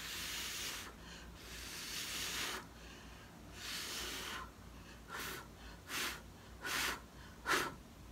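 A person blowing air from the mouth across wet acrylic paint on a canvas: three longer blows, then four short, sharp puffs, the last one the loudest.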